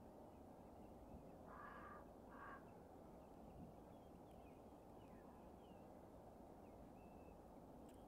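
Quiet outdoor field ambience with a low steady background rumble. A distant bird gives two short calls about one and a half and two and a half seconds in, and small birds chirp faintly later on.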